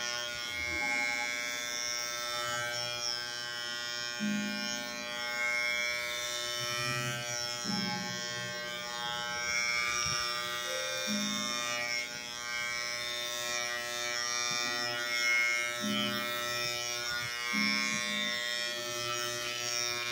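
Corded Wahl electric hair clipper buzzing steadily as it trims body hair on a man's back and neck, with music playing over it.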